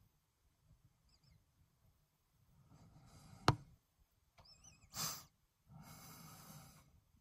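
Faint open-field ambience: soft breathy rushes of noise, a few high wavering chirps, a sharp click about halfway through that is the loudest sound, and a short hiss just after it.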